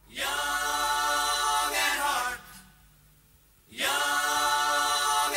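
Background music: voices singing in a choir, holding two long sustained chords separated by a pause of about a second and a half.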